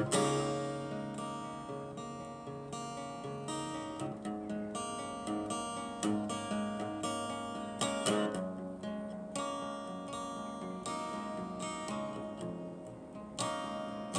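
Acoustic guitar played without voice: chords strummed about once a second and left to ring, with a louder strum at the start and another near the end.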